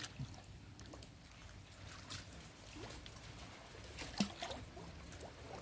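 Faint trickling and small irregular splashes of water, from wading and groping by hand in the water for freshwater prawns.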